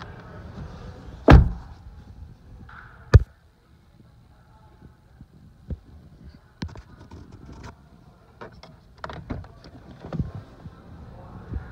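Car door of a 2020 Toyota Corolla Hybrid pulled shut from inside with a heavy thunk about a second in, then a sharp clunk about two seconds later. A run of light clicks and taps follows as hands work the interior trim and the glove box latch.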